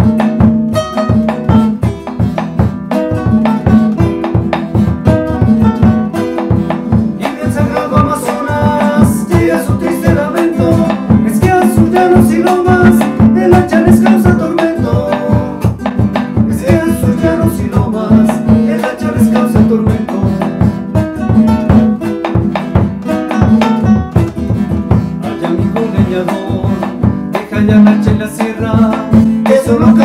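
Acoustic guitars playing a bambuco: a plucked melody over a steady, rhythmic accompaniment in the lower strings.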